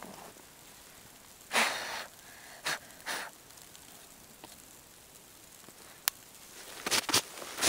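A person's loud breath-like exhalation about one and a half seconds in, then two shorter ones, followed by a quick run of short rustling and knocking noises near the end.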